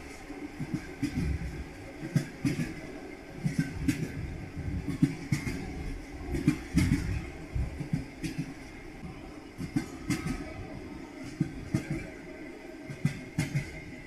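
Railway carriage wheels knocking over rail joints: clusters of sharp clacks come every second or so over a steady low rumble of a train running.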